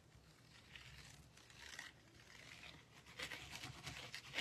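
Faint rustling and crinkling of paper and card being handled, with a busier spell of crackling from about three seconds in.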